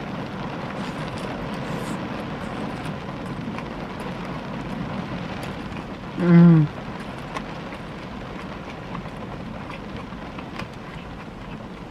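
Steady rain on a car's roof and windows, heard from inside the car as an even hiss with faint scattered ticks. About six seconds in, a woman gives a short 'mmm' of enjoyment, falling in pitch, with her mouth full.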